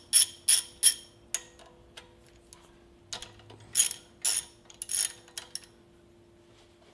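Sharp metallic clicks and clanks of the work table being loosened and taken off a 2x72 belt grinder: a quick run of three near the start, then another three or so about four seconds in, with a faint steady hum beneath.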